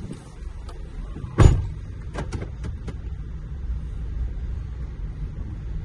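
Steady low engine and road rumble inside a pickup truck's cab as it rolls slowly, with one loud thump about a second and a half in, then a few light clicks.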